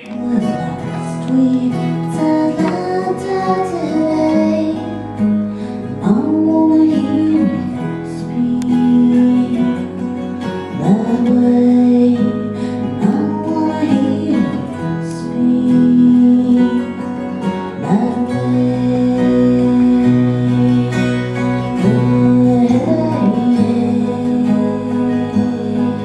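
Small acoustic band playing: a strummed acoustic guitar with a woman singing, and deeper bass notes growing stronger about two-thirds of the way through.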